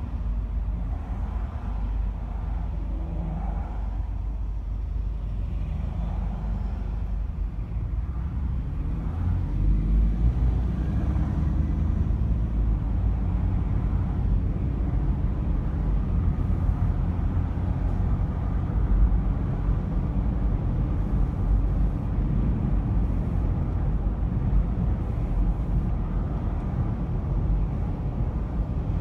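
Low rumble of a car's engine and tyres on the road, growing louder with some rising engine pitch about nine seconds in as the car pulls away from a standstill in traffic, then steady at cruising speed.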